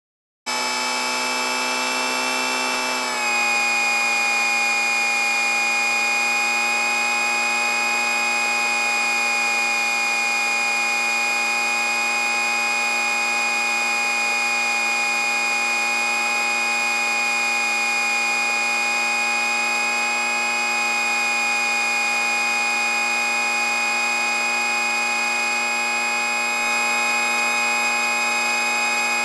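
The LoRyder aircraft's motor and propeller heard from the onboard camera: a steady, high buzzing whine that starts about half a second in, drops slightly in pitch around three seconds in, then holds steady at cruise.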